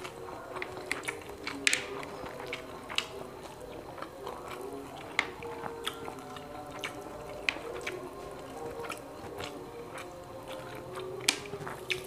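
A person chewing and biting into grilled quail eaten by hand, with irregular sharp mouth clicks and smacks, the loudest about 1.7 s in and near the end.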